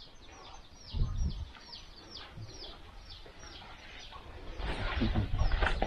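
A bird, possibly a chick, repeating short, high, falling chirps, about three a second. There is a low thump about a second in and some rustling noise near the end.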